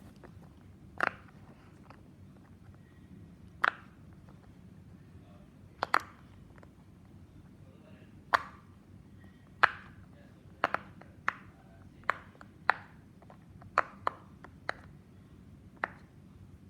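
A fidget toy being popped: about fifteen sharp, single pops at uneven intervals, a few seconds apart at first and coming quicker from about ten seconds in.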